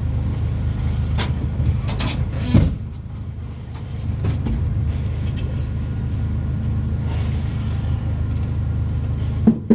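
A vehicle engine running with a steady low rumble, which dips briefly about three seconds in. Several clicks and knocks sound over it, and there is a sharp knock near the end.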